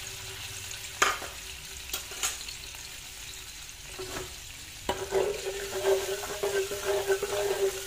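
Fish-sauce mixture with minced garlic and chili being poured into a nonstick frying pan with a little hot oil and stirred with a spatula, sizzling. There are a few sharp taps in the first couple of seconds, and the sizzling and stirring grow busier from about five seconds in.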